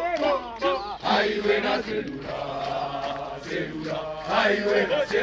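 A group of voices singing or chanting a song together, with held notes in the middle.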